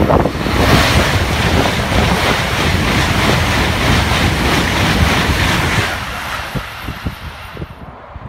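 Eurostar high-speed train passing close at speed: a loud rush of air and wheel noise that builds within the first second, holds for about five seconds, then dies away over the last two, with wind buffeting the microphone.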